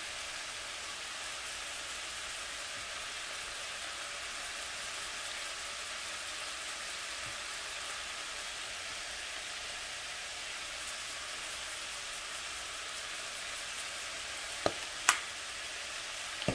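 Stir-fry vegetables sizzling steadily in a skillet on the stove. Near the end come two sharp clicks about half a second apart.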